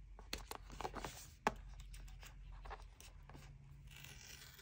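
Hands working open the white cardboard Apple Watch box and its inner packaging: faint paper-and-card scraping and rustling, with a few small taps and one sharp click about a second and a half in.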